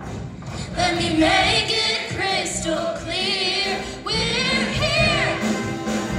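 High school show choir singing, with held notes that waver in vibrato; the voices swell louder about a second in.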